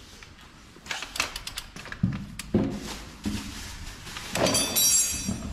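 Ratchet wrench and socket working the front axle of a Yamaha YZ450F dirt bike: a run of metal clicks, knocks and clanks, with a brief metallic ringing near the end.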